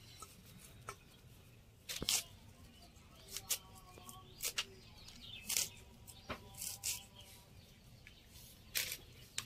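Crisp, irregular crunches of raw cabbage leaves being sliced against a boti, the fixed upright floor blade, one short stroke every second or so.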